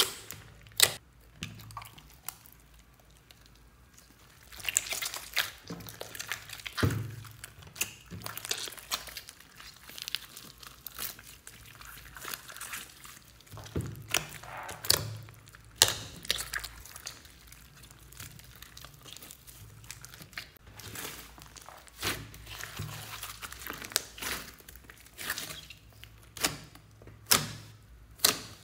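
Hands squeezing and kneading a large mass of soft, sticky slime mixed with small beads: irregular sticky clicks and squelches.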